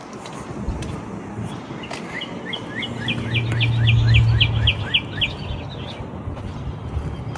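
A songbird singing a quick series of about a dozen repeated chirps, about four a second, starting about two seconds in and lasting about three seconds. A low steady hum swells and fades under the song midway through.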